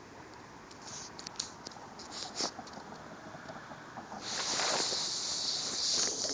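Pencil scratching on notebook paper: a few short strokes, then a longer stretch of steady scratching from about four seconds in.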